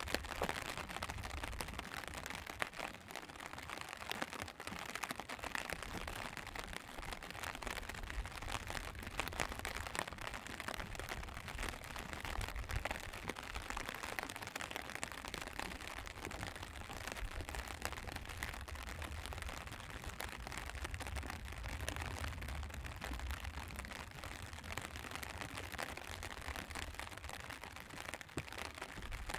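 Steady light rain falling: an even hiss made of many small drop ticks, over a low rumble.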